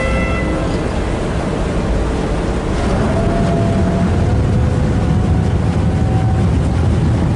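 Ferry engines rumbling, heard from the open deck with water wash and wind on the microphone; the low rumble grows heavier about three seconds in. A ship's horn cuts off right at the start.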